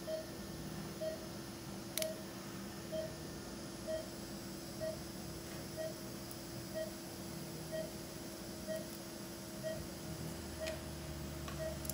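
Operating-room patient monitor beeping steadily about once a second, one short mid-pitched beep per pulse, over a steady hum. A sharp click about two seconds in.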